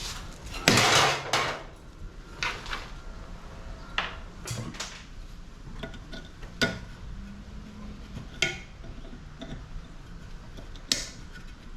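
Metal clanking and clinking of hand tools against an air conditioner's sheet-metal parts as it is taken apart, with a loud scraping rattle about a second in and then a series of separate sharp knocks.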